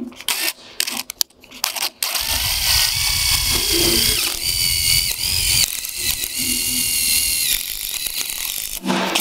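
Cordless drill-driver driving a 3/8-inch hex-head stainless steel screw through a vinyl pergola beam into its post. A few light clicks come first, then about two seconds in the motor runs for around seven seconds, its whine dipping in pitch a couple of times under load.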